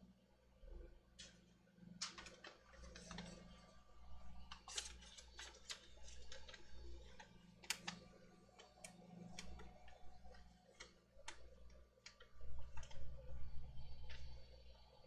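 Irregular light clicks and clatter of small parts and tools being handled and set down on a cluttered workbench. About twelve seconds in, a louder low rumbling handling noise joins the clicks.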